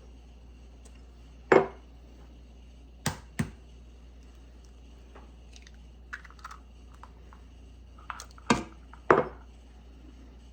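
Eggs being cracked: several sharp knocks of eggshells tapped against a hard edge, the loudest about a second and a half in, then pairs of knocks around three and nine seconds in.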